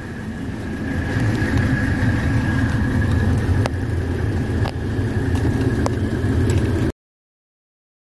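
Mercedes-Benz 300CD's five-cylinder turbo diesel idling, heard from inside the cabin, with a steady high whine over the low rumble and a few light clicks. It cuts off suddenly near the end.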